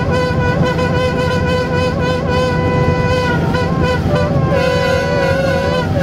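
Air horn of an LDH1250 diesel-hydraulic locomotive blowing one long blast, its pitch wavering slightly and faltering briefly a little past the middle, over the steady running of the locomotive's diesel engine.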